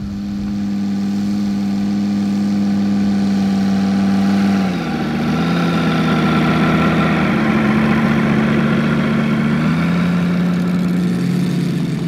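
The SP-250-X engine (a Moki 250cc five-cylinder radial with planetary reduction gear) of a quarter-scale Sea Fury model runs at low throttle, turning a large five-blade propeller. The tone is steady and pitched and shifts in pitch about five, seven and ten seconds in.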